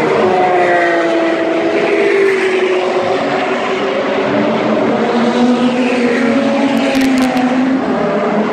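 Sports cars, among them a Porsche 911 with a rear wing, running at speed down a race track straight. Several engine notes overlap, their pitch falling as the cars pass in the first couple of seconds, and a lower engine note holds later on.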